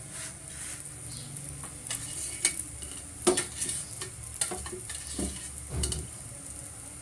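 Paratha frying in ghee in a nonstick pan with a steady sizzle. A metal spatula clicks and scrapes against the pan several times from about two seconds in.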